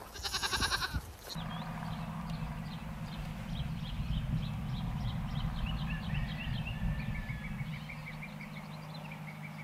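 A goat bleating once, a loud wavering call about a second long. After it, a steady low hum with small birds chirping high and repeatedly over it.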